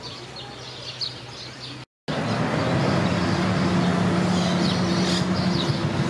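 Small birds chirping over a quiet outdoor background; about two seconds in the sound cuts out briefly and gives way to a louder steady motor drone with a low hum, birds still chirping faintly over it.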